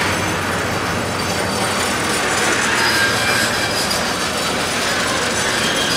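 Motorized garage door opener raising a sectional garage door: a steady mechanical rattling that runs throughout and cuts off near the end.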